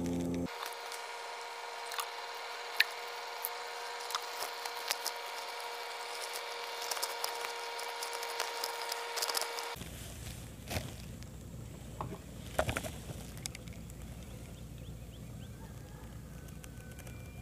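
Scattered sharp clicks, taps and rubbing from hands handling fishing tackle (hook, line, rod and reel) in a small boat, over a steady hum that gives way about two-thirds of the way through to a low, even background.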